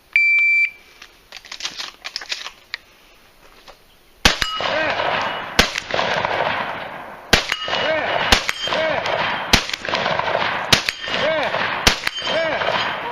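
A shot timer's short high start beep. After a few seconds of faint handling clicks come about seven shotgun shots spaced roughly a second or so apart, each followed by the ringing clang of a struck steel target.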